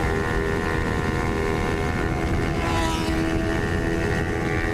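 Remapped Kawasaki Ninja 250R's parallel-twin engine held at steady high revs on a flat-out top-speed run, with wind rushing over the microphone.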